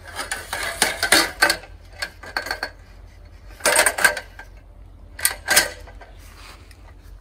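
Folding mini scaffold that doubles as a multi-purpose ladder being reset into a new configuration: its metal parts clank and rattle in about four bunches of knocks.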